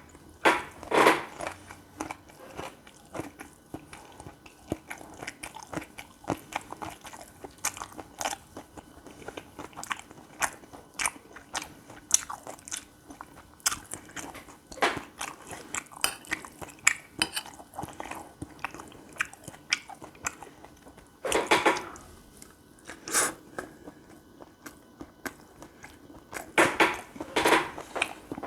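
Close-miked chewing and biting of gopchang fried rice: a dense run of small wet clicks, with a few louder bites spread through.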